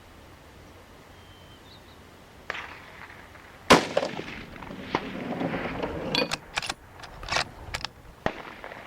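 A single rifle shot from a .243 Ruger American Predator fitted with a Witt Machine muzzle brake, its ports turned to the sides. It cracks sharply a little over a third of the way in, is the loudest sound, and trails off in echo. A few short, sharp clicks and knocks follow.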